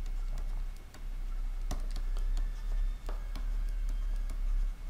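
A stylus tapping and scratching on a pen tablet during handwriting, heard as irregular light clicks a few times a second, over a steady low hum.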